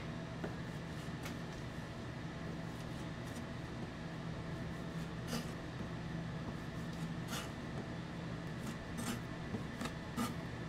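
A steady mechanical hum, with a handful of short sharp clicks or taps scattered through it.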